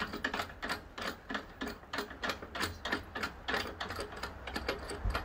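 Quick ratchet-like clicking, about four clicks a second, from the two screw-in side handles of a Sky-Watcher 12-inch collapsible Dobsonian telescope as they are turned in to clamp the tube in its base.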